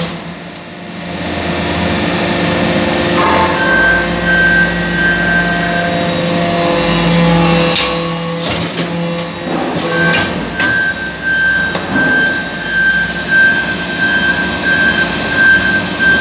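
Metal-chip briquetting press running as it compacts chips into briquettes. It gives a steady machine hum with a high whine that comes and goes. Several sharp knocks fall in the second half.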